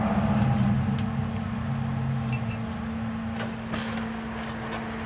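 A steady low machine hum, with a second, lower hum that fades out about halfway through, and a few faint clicks in the second half.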